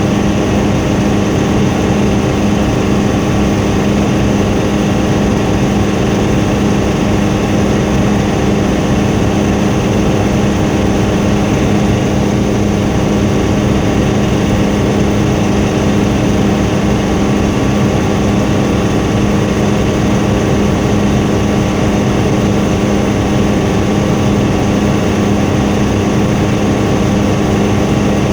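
Helicopter in flight, its engine and rotors making a loud, steady drone with a constant low hum.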